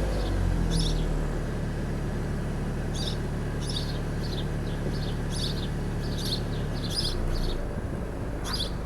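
SEAT Leon Cupra 290's turbocharged 2.0-litre inline-four idling steadily through its stock exhaust in comfort mode, its revs dropping back in the first second. Birds chirp over it again and again.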